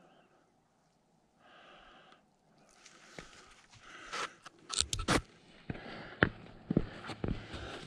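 A couple of soft breaths, then handling noise from a helmet-mounted camera as the helmet is taken off: rustling and scraping from about three seconds in, with several sharp clicks and knocks in the second half.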